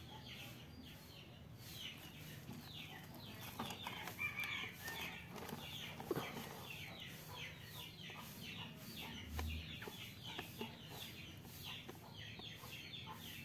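Chickens clucking and peeping faintly, a quick run of short, high, falling chirps throughout, with a few faint clicks.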